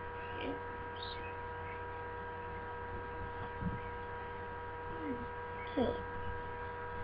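Steady electrical hum with several thin constant tones, the line noise of a webcam microphone recording a quiet room. A few faint, brief vocal sounds rise out of it.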